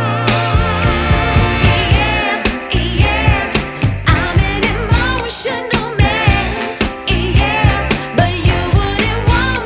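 Background pop song: a singing voice with vibrato over a bass line and a steady beat.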